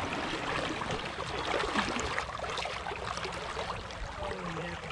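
Steady rush of flowing river water, with many small crackles and splashes in it.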